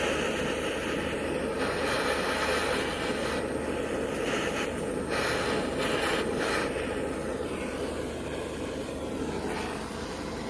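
Steady rushing hiss of a flame preheating the generator of a Coleman 502 stove, easing off slightly near the end.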